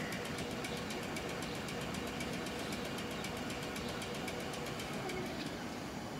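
Class 455 electric multiple unit standing at the platform, its onboard equipment giving a steady hum with a fast, even ticking of about six a second.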